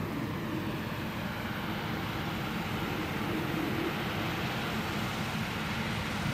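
Claas Lexion 560 combine harvester running steadily under load while threshing soybeans: engine and threshing machinery in an even, continuous hum.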